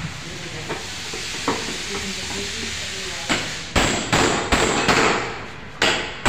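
Hammer blows: a few scattered knocks, then from about halfway a steady run of sharp strikes, roughly two to three a second.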